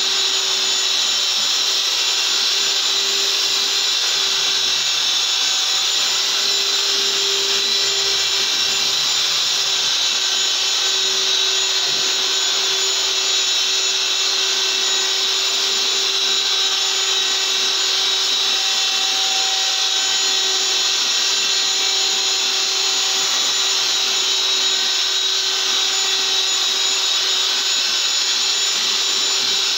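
Electric wall-putty sander running steadily as its disc sands a puttied wall, together with the dust-extraction vacuum drawing through its hose. A constant hum with a steady tone and hiss that does not change.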